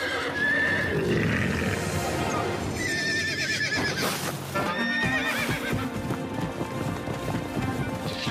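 Cartoon horses whinnying three times, with a quavering call near the start, another about three seconds in and another about five seconds in, over galloping hooves and background music.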